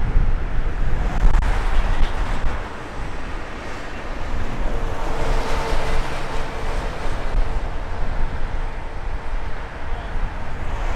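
Wide-body airliner's jet engines at take-off thrust: a steady rumble, with a humming tone and a brighter roar coming in about five seconds in. Wind buffets the microphone, most strongly at the start.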